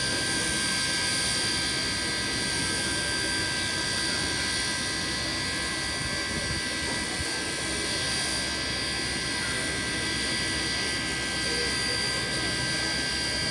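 NSW 35 class steam locomotive 3526 blowing off steam, most likely through its safety valves: a steady, even hiss with a few steady tones in it.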